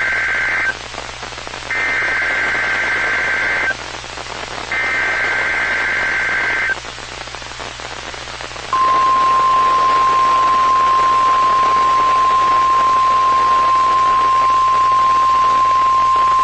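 NOAA Weather Radio weekly alarm test: the end of one SAME header data burst and then two more, each about two seconds of harsh two-tone digital screech with short gaps between. About nine seconds in, the steady 1050 Hz warning alarm tone starts and holds, over radio hiss.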